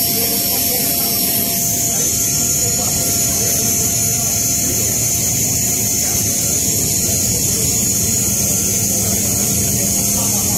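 Steady, loud aircraft noise heard inside the cargo hold of a military transport plane: an unbroken roar with a strong high hiss and a faint steady tone under it.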